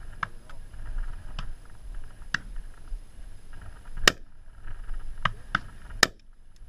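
Two shotgun shots about two seconds apart, with several fainter sharp cracks before them.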